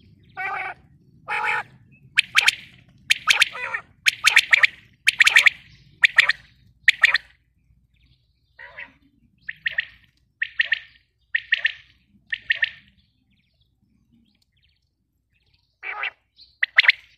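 Female quail calling: a series of short, high notes repeated about once or twice a second, some in quick pairs. The calls break off for a few seconds past the middle and start again near the end.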